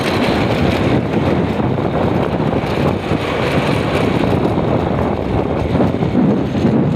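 Steady rumbling noise of a moving vehicle, with wind buffeting the microphone.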